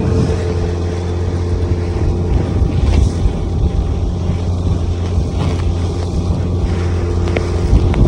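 Steady low engine drone with a constant pitch, under rough wind buffeting on the microphone.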